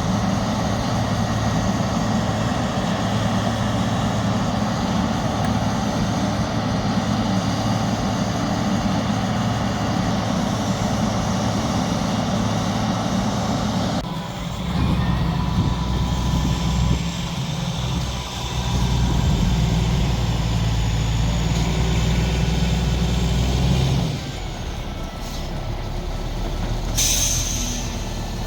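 Concrete mixer truck's diesel engine running steadily. Its note shifts about halfway through and eases off a few seconds before the end. A short hiss of air follows near the end, like an air brake.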